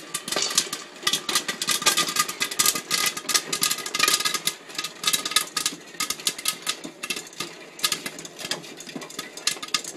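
Popcorn kernels popping rapidly inside a hand-cranked aluminium stovetop popcorn popper, with the crank's stirring mechanism rattling along. The pops come thickest in the first half and grow sparser toward the end.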